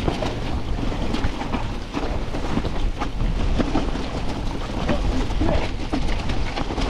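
Wind buffeting the action-camera microphone over a steady low rumble, with many small clicks and rattles, as of a mountain bike rolling over a rough, wet trail.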